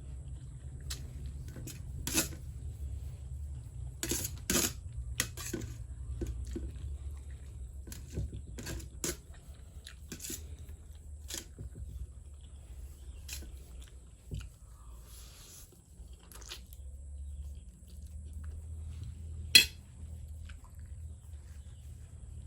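A person chewing fried noodles, with scattered short clicks and taps and one sharp, loud click about 19 seconds in, over a steady low hum.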